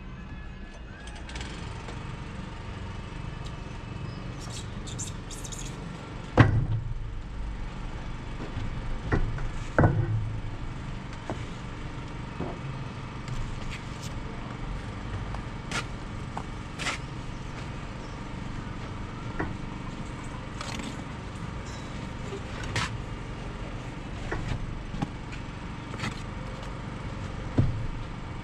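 Stones being handled on a scaffold: scattered sharp clicks of stone against stone and several heavier thumps, the loudest about six and a half seconds in, about ten seconds in and near the end, over a steady low outdoor rumble.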